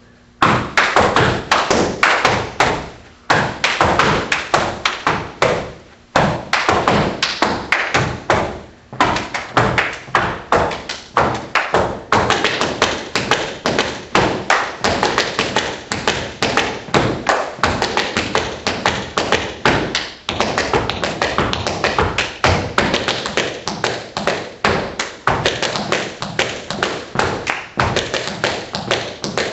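Unaccompanied tap dancing: tap shoes striking the floor in quick, dense rhythmic runs, with short breaks about 3, 6 and 9 seconds in.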